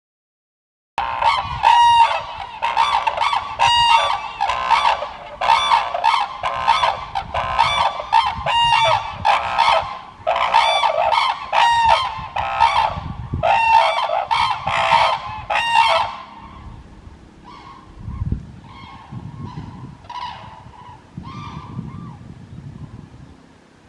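Red-crowned cranes calling: a rapid run of loud, ringing calls starts about a second in and continues for some fifteen seconds. Near the end it tapers off to fainter, more widely spaced calls.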